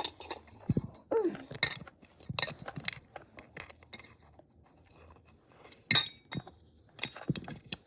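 Forks clinking and tapping against a bowl and dishes in scattered light clicks, with the sharpest knock about six seconds in.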